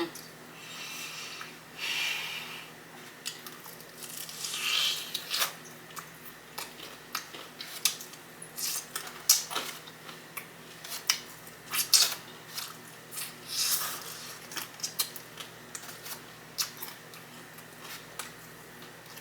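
Close-up eating sounds of a person chewing hot honey chicken wings: irregular wet smacks, clicks and short squishy bursts of biting and chewing.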